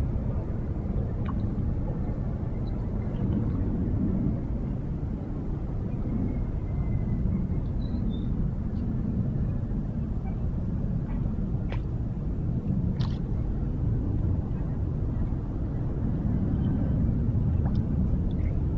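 Steady low outdoor rumble with no clear pitch, typical of wind on the microphone, with a few faint short high chirps scattered through it.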